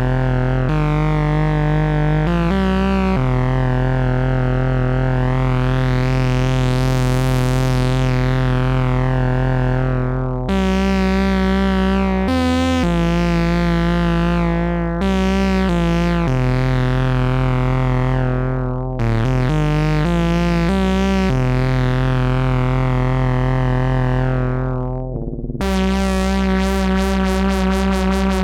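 Behringer 2600 analog synthesizer playing a run of held, buzzy notes with a strong bass, changing pitch every few seconds. In the first third a slow filter sweep opens the tone up very bright and closes it again. Near the end the sound turns to a fast fluttering, ringing texture.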